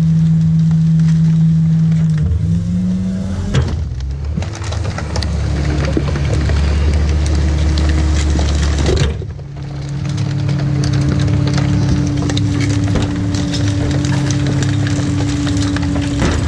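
Rear-loader garbage truck's hydraulic packer cycling under a revved engine: a steady hydraulic hum while the sweep blade crushes recycling, with crackling and crunching of cardboard and plastic. The hum steps up in pitch about two seconds in and dips briefly around nine seconds, then settles into a steady higher whine.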